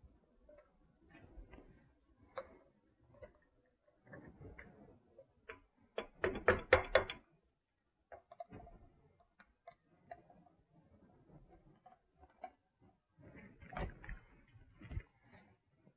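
Snap-ring pliers fitting a snap ring onto an ATV CV axle joint: scattered light metal clicks and taps, with a quick run of clicks about six seconds in and a sharper click near the end.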